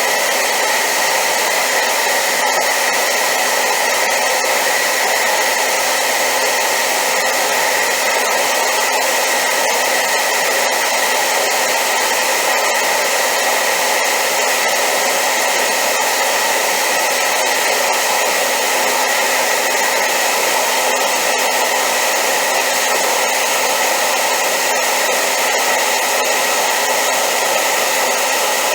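Hair dryer running continuously on high power: a loud, unchanging rush of air with a steady whine in it, used as white noise.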